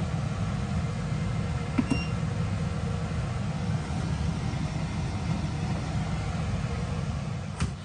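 Steady low machine hum with an even hiss over it. A short, faint electronic beep comes about two seconds in.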